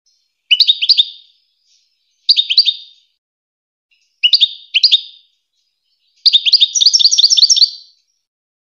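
European goldfinch singing in four short phrases of quick, repeated downslurred notes with pauses between them; the last phrase, about two seconds long, is the longest and fastest.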